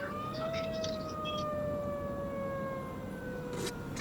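Outdoor tornado warning siren wailing, its pitch rising until about half a second in and then slowly falling; it is sounding for a tornado warning.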